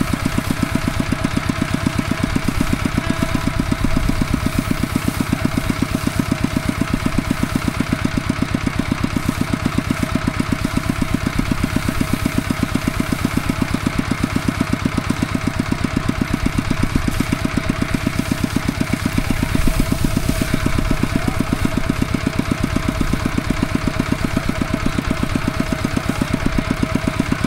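Farm tractor's diesel engine running steadily with an even, rapid thudding beat.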